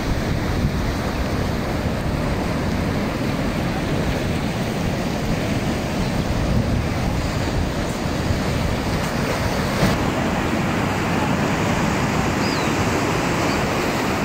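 Ocean surf breaking and washing over coastal rocks, a steady rush of noise with no letup. A single brief click about two-thirds of the way through.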